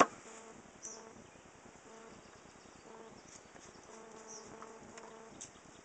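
Package of Russian honeybees buzzing in a steady, even hum, with a sharp squirt of a hand spray bottle right at the start.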